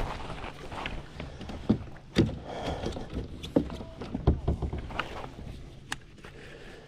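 Irregular knocks and bumps against a kayak, about half a dozen scattered over a few seconds, as a catfish is handled aboard.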